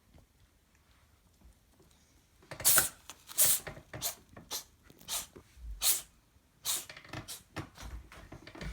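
A dog sneezing in a fit: about ten sharp sneezes in quick succession, starting about two and a half seconds in, roughly one every half second to a second.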